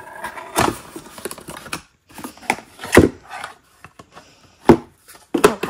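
A small cardboard advent-calendar box being handled and opened by hand: scattered rustles and scrapes of packaging with a few sharp taps and knocks, the loudest about three and nearly five seconds in.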